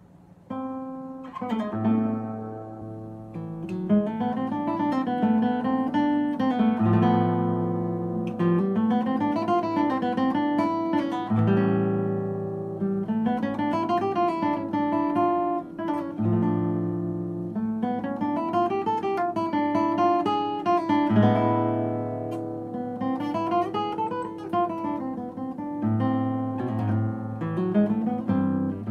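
Nylon-string classical guitar played solo, fingerpicked arpeggios that climb and fall again and again over held bass notes.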